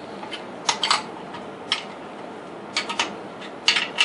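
Scattered metallic clinks and clanks as wrenches tighten the steel tailstock of a homemade wood lathe. Some come singly and some in quick clusters.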